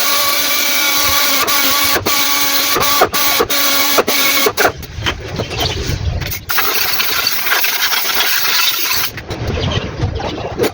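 A machine running with a steady humming tone and brief dropouts; about halfway through, the tone weakens and a lower rumble takes over.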